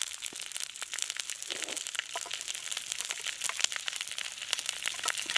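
Hot oil sizzling and crackling steadily in an iron kadai, with rapid dense pops, as a heap of onion and red chilli paste fries in it.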